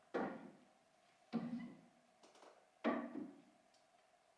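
Objects being set down and shifted on a bookcase shelf: three knocks about a second and a half apart.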